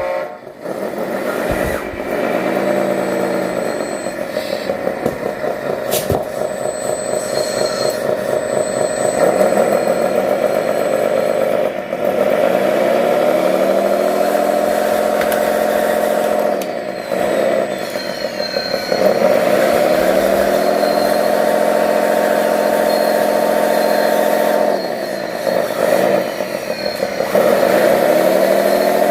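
Radio-controlled construction model's motor running under a heavy load, its pitch repeatedly winding up, holding steady and dropping back as the throttle is worked. A single sharp click about six seconds in.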